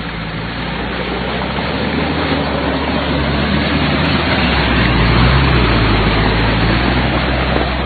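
Vehicle engine running hard under load with a dense rushing noise, growing louder over the first five seconds and easing slightly near the end.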